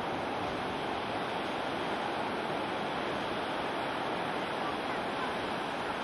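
Ocean surf breaking over rocks and along a beach, a steady wash of noise.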